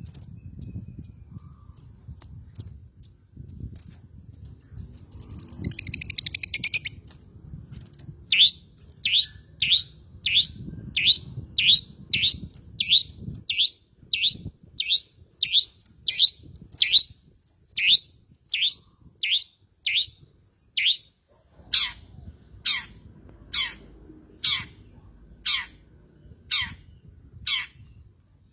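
Long-tailed shrike (cendet) calls played as a lure: a faint high chatter that builds into a quick ticking trill, then a long run of sharp, downward-slurred calls about two a second. In the last several seconds the calls become longer sweeps that drop lower, a little under one a second.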